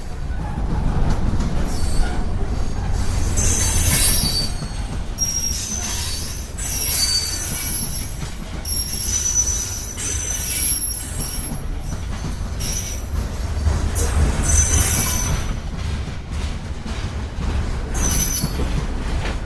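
Freight cars of a Norfolk Southern manifest train rolling past with a steady low rumble, their wheel flanges squealing in high, thin tones that come and go every second or two.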